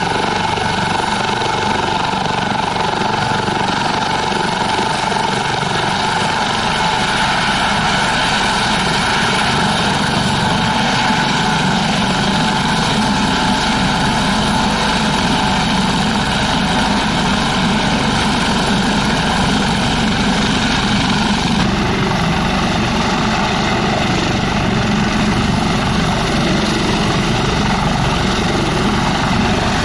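Eurocopter AS365 N3+ Dauphin helicopter running on the ground with its rotors turning: a steady turbine and Fenestron whine over the beat of the main rotor. The tone shifts abruptly about 22 seconds in.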